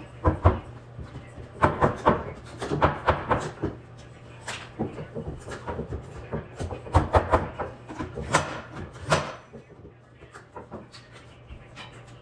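Irregular knocks and bumps of wood being handled and struck, several loud ones from about 4.5 to 9.5 seconds in, thinning out near the end.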